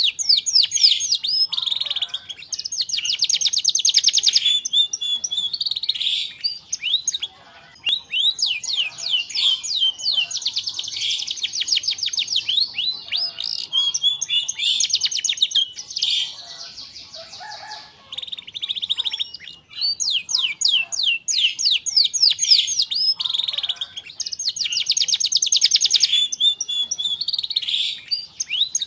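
Domestic canary singing a long, vigorous song of high-pitched chirps and fast rolling trills, pausing briefly twice.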